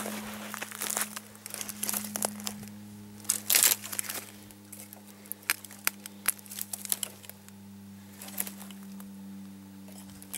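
Irregular crackling and rustling of dry grass and twigs underfoot, with the clinking of a loose pocket-chainsaw chain being handled. It is busiest about three and a half seconds in, then sparse clicks.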